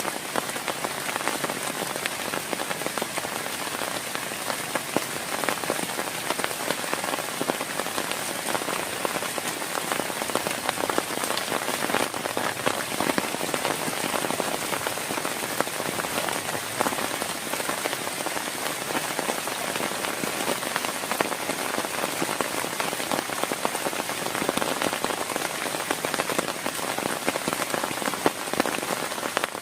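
Heavy rain falling steadily on a surface: a dense, unbroken patter of drops with many small sharp hits.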